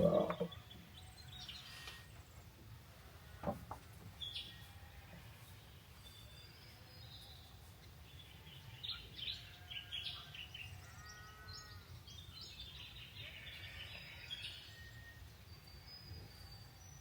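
Wild birds chirping in scattered short calls, busiest around the middle and again near the end, over a steady low background rumble. A short, louder low sound comes right at the start, and a single knock about three and a half seconds in.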